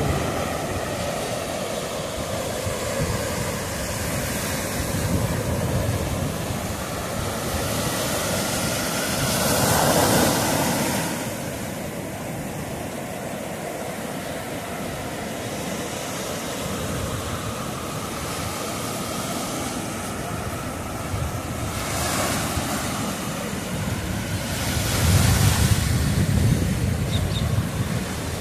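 Black Sea surf: waves breaking and washing up over sand and rocks in a continuous rush. It swells louder as bigger waves break about ten seconds in and again near the end.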